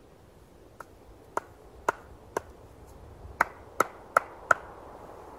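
Two split firewood logs knocked together to shake off the snow: eight sharp wooden knocks, each with a short ringing tone. Four come about half a second apart, then after a short pause four quicker, louder ones.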